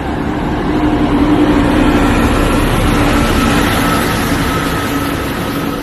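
A large truck driving past on the road. Its engine and tyre noise swell over the first second or two, hold, then slowly fade.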